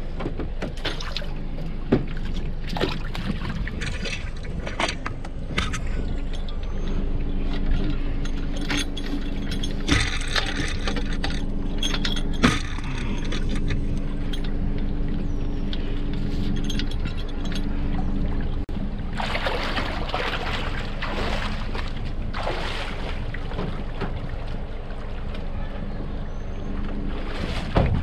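Water gurgling and splashing against the hulls of a Hobie Cat 16 catamaran under way, over a steady low wind rumble. A few sharp knocks come through, and a longer hissing splash about two-thirds of the way in.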